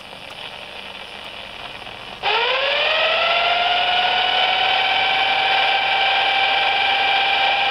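Low static hiss from a Kraco Mayday CB radio's speaker. About two seconds in, a loud whine cuts in, rises in pitch and settles to a steady tone. This is interference from the car's air-conditioning fan motor picked up by the receiver, which has no noise blanker.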